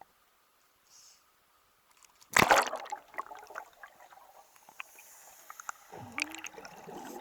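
A loud splash about two seconds in as a person dives into the water, followed by water sloshing and dripping.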